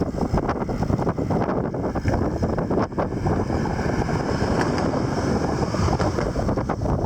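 Wind buffeting the microphone of a person riding a bicycle: a steady low rush with constant small gusts and crackles.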